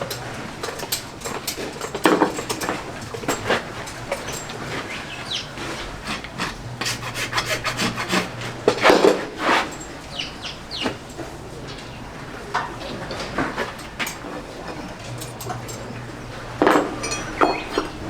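Farrier's tools rasping and scraping a racehorse's hoof in a run of irregular strokes, with louder bursts of strokes about two, nine and seventeen seconds in.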